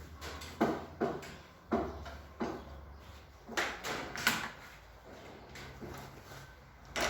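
The SM104 crate machine's reassembled head being turned over by hand to check it mechanically. Its mechanism gives a series of irregular knocks and clacks, about half a dozen, a few of them sharper than the rest.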